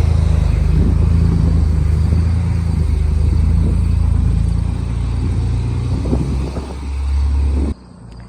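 A machine's motor running steadily with a loud, deep hum, cutting off suddenly near the end.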